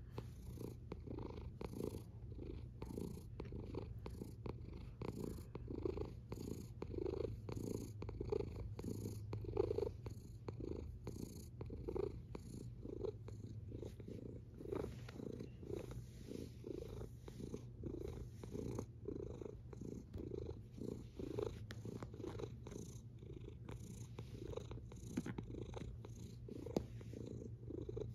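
Domestic tabby cat purring steadily right against the microphone, the purr swelling and fading in a regular rhythm with each breath in and out.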